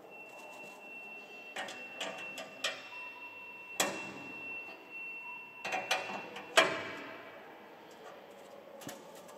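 Sharp metallic clicks and clinks as a locking pin and bracket on a grain header's crop divider are worked by hand, about eight in all, the loudest a clank about six and a half seconds in. A faint steady high tone runs under the first six seconds.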